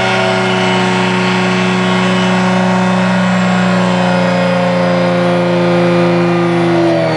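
Benchtop drill press running steadily while its bit bores out the inside of a thick-walled brass tube lubricated with WD-40, thinning the wall. Some of the higher tones of the motor hum slowly drop in pitch in the second half.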